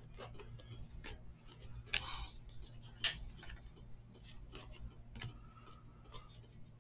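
Glossy 2019 Panini Unparalleled football trading cards flipped through by hand, each card slid off the stack with a soft click or swish in an irregular run, with two sharper snaps about two and three seconds in.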